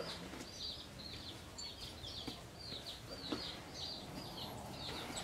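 A bird chirping over and over, short high notes at about two or three a second, over faint outdoor background noise.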